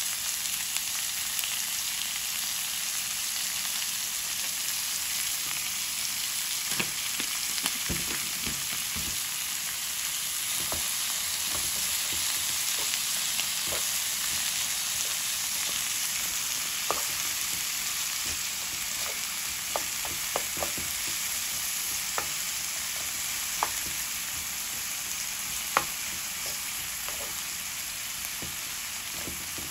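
Chopped onion, green chiles and tomato frying in oil in a pan: a steady sizzle, stirred with a wooden spoon, with scattered sharp clicks.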